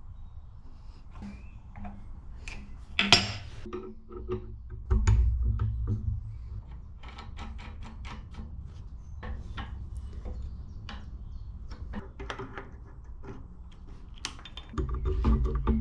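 Metal parts of an 1890s shaper clinking and knocking as they are handled and fitted by hand, with many short clicks, a sharp clank about three seconds in, and a low rumble about five seconds in and again near the end.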